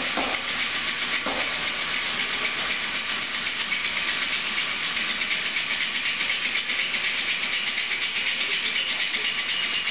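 Single-cylinder steam engine driving a DC generator, running steadily: a continuous steam hiss with a quick, even pulse of the engine's strokes. A steady high tone comes in about four seconds in.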